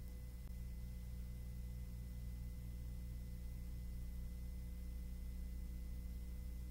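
Steady low drone of the survey aircraft's engines heard through the crew intercom recording, with faint steady high tones on top.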